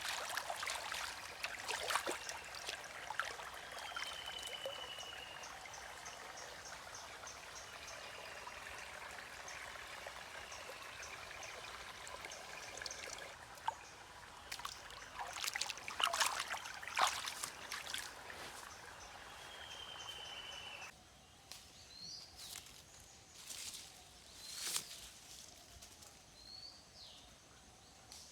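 A steady trickling hiss, like running water, with scattered knocks. About three-quarters of the way through it cuts off abruptly, leaving a quieter outdoor background with short bird chirps every couple of seconds.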